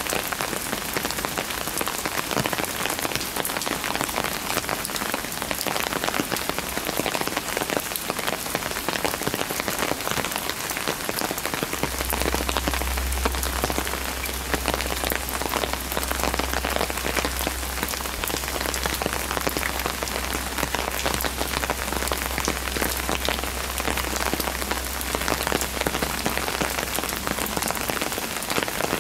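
Heavy rain falling on stone steps and paving: a dense, even hiss of close drop patter with no let-up. A low steady hum comes in about twelve seconds in and stops near the end.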